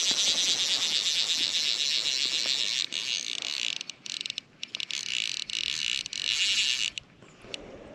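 Fly reel's click-and-pawl drag clicking rapidly as line runs through the reel, with a few short breaks in the middle, stopping about seven seconds in.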